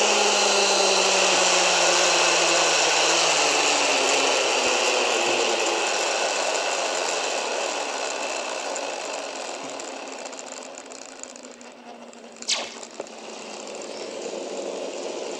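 Zip-line trolley pulleys running along the steel cable with air rushing past, the whir sinking in pitch and fading as the rider slows. A single sharp clack comes about twelve seconds in, then the running sound builds again.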